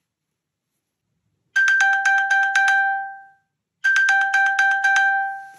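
iPhone sounding its 'Ping iPhone' locator chime, set off from an Apple Watch: rapid high pings, about five a second, in two bursts of about two seconds each, the first starting about a second and a half in and the second about four seconds in.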